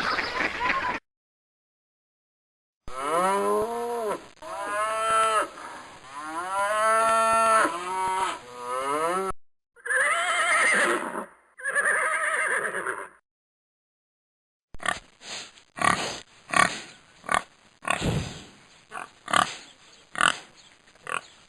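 A sequence of farm animal calls, with short silent gaps between them. First comes a series of drawn-out pitched calls that rise and fall, then two rough, harsher calls, then a quick run of short calls near the end.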